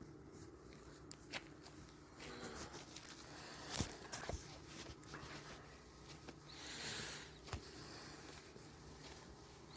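Faint footsteps and rustling on a walk, with scattered sharp clicks, the loudest just under four seconds in, and a soft hiss near seven seconds in.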